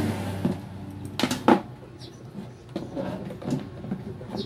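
Handling noise: light knocks and clicks as an analog multimeter and its test leads are moved about on a wooden table, with two louder knocks a little over a second in and fainter ones after.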